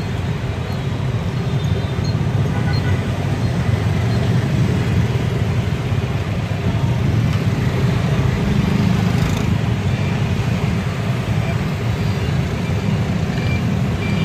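Steady low rumble of street traffic, with hot oil sizzling as battered durian fritters deep-fry in a pan.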